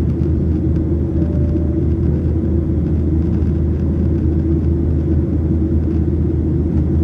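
Steady, unbroken low rumble of an airliner's engines and cabin, heard from inside the aircraft.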